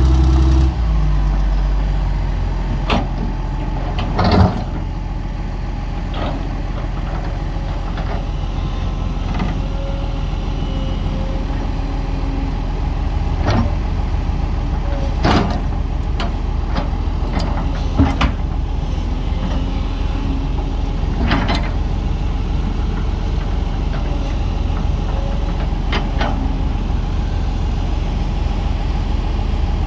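Heavy diesel engine running steadily at a low, even pace, with several sharp knocks scattered through.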